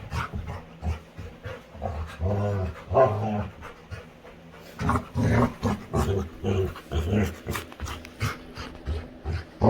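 Labrador retriever panting and making low, pitched grunting sounds in short, irregular bursts while playing.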